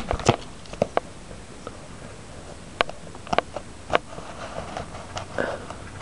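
Retail packaging of a small electronics product being handled: a scattering of sharp clicks and taps with some light rustling.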